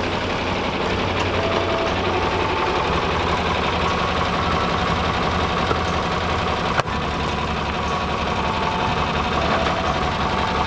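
John Deere farm tractor engine running steadily at low speed, with an even low hum and a brief break about two-thirds of the way through.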